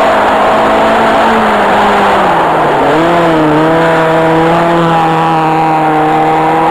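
Opel Corsa A GSi engine running hard on its original stock exhaust, loud and steady in pitch, dropping in pitch about two and a half seconds in and then holding steady at the lower note.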